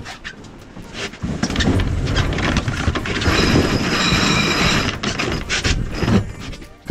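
Sailboat deck winch ratcheting with fast clicking as a sheet is hauled in around it during a tack, over a loud low rush. The clicking is densest in the middle and eases off near the end.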